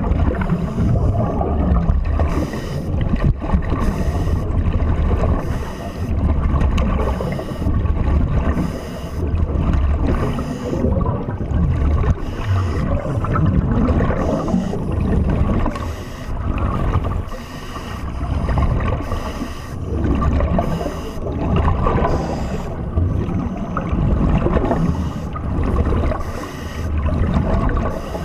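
Scuba divers breathing through regulators, heard underwater through the camera housing: bursts of exhaled bubbles rumble and gurgle, swelling and fading every two to three seconds.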